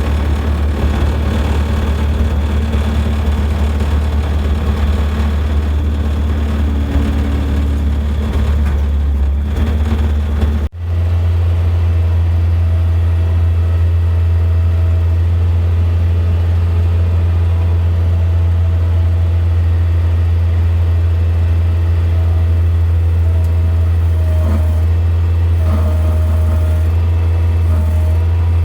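Skid steer engine running steadily, a strong low hum. It cuts out for an instant about eleven seconds in, then carries on at a slightly different steady pitch.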